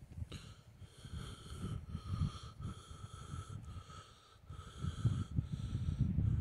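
Tecsun PL-380 shortwave receiver tuned between stations near 12 MHz: static and crackle, with a faint signal tone that pulses on and off about once a second as the dial steps down.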